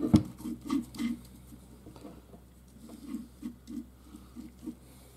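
Handling noise from work on a mower gearbox: one sharp knock right at the start, then light, irregular taps and clinks of hand tools and small metal parts.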